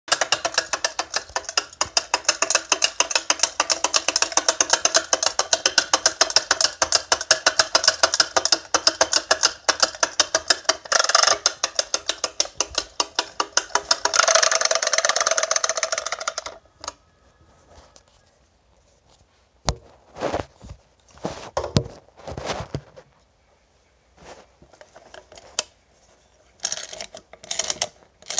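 Mavco wind-up Donald Duck toy running: a fast, even clicking rattle from its clockwork, a little louder for the last couple of seconds, stopping suddenly about 16 seconds in. After that, scattered knocks and taps as the plastic toy is handled.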